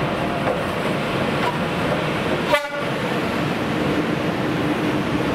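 Škoda-built ChS7 two-section DC electric locomotive and its passenger coaches passing close by, with steady wheel-on-rail running noise. About two and a half seconds in there is one brief sharp sound.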